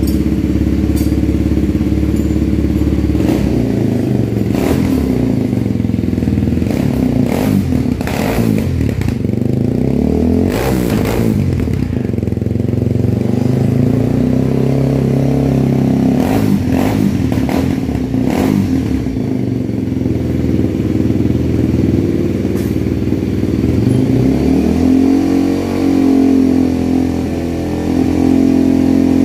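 Kawasaki KLX 230's single-cylinder four-stroke engine running through an aftermarket exhaust, blipped repeatedly so the note rises and falls through the first two-thirds, then settling back to a steady idle.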